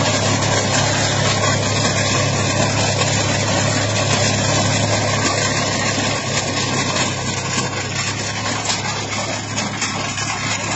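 Stone-picking machine working off a tractor's PTO shaft: a loud, steady mix of engine hum and the machine's mechanical rattle, easing slightly about halfway through.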